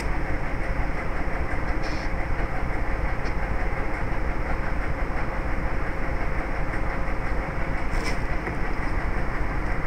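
Steady rushing background noise with a low hum, and two faint clicks, about two seconds in and again near eight seconds.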